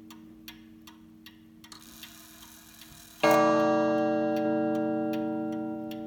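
Antique Ansonia mantel clock movement ticking about two and a half times a second, then a brief whirr as the striking train releases and a single loud strike about three seconds in that rings on with many overtones and slowly dies away, while the ticking continues.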